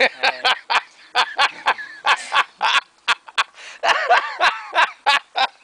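Laughter in quick, repeated short bursts, several a second, with a few longer voiced stretches around the middle.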